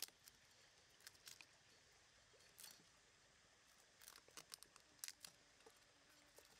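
Faint, scattered clicks and taps of a knife and garlic cloves against a wooden cutting board as the cloves are peeled and split apart, in a small cluster about a second in and a busier run of clicks past the middle.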